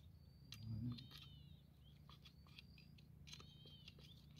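Faint clicking and crackling of hands digging into wet mud and soil at a crab burrow, with a brief low sound about half a second in and a few faint high chirps.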